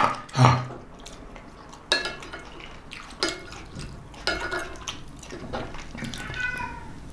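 A wooden spoon scraping across a ceramic dinner plate to gather the last of the food: about five short scrapes a second or so apart, some with a brief squeak.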